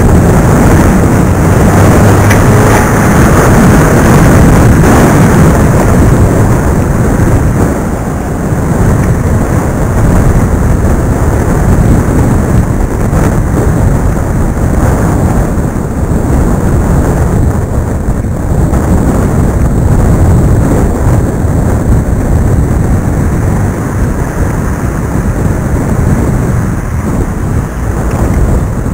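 Wind buffeting the built-in microphone of iVUE 720p video glasses worn while riding a bicycle, a loud, steady rumbling noise that drowns out everything else.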